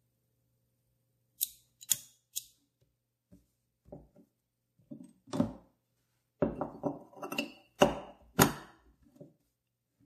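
Handling of a chrome Ronson butane gas lighter: three sharp metallic clicks close together about one and a half seconds in, then a run of knocks and scrapes as the metal body is turned over in the hands.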